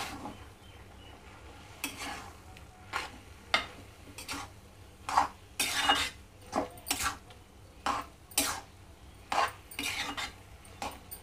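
Metal spatula scraping and clinking against a metal kadai as grated carrots cooking in milk are stirred, in irregular strokes about one or two a second.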